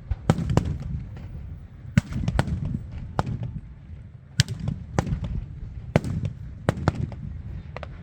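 Aerial fireworks bursting in a display: about ten sharp bangs at uneven intervals, some in quick pairs, over a continuous low rumble.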